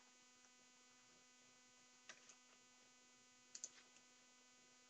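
Near silence: a faint, steady electrical hum, with a few faint clicks about two seconds and three and a half seconds in.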